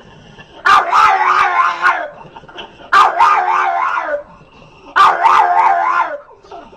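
A dog giving three drawn-out, wavering howl-like vocal calls, each a little over a second long, in reply to its owner.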